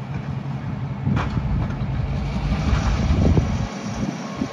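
Diesel locomotive engine running as a maintenance-of-way train creeps forward, with gusts of wind buffeting the microphone.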